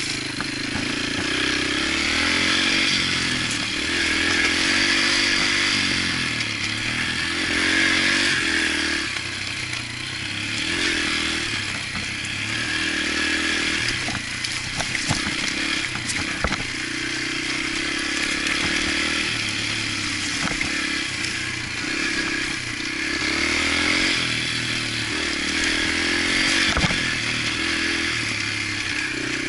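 Yamaha TTR125 dirt bike's single-cylinder four-stroke engine being ridden on a trail, the revs rising and falling every few seconds with the throttle and gear changes. A few sharp knocks of the bike jolting over the rough trail come in the second half.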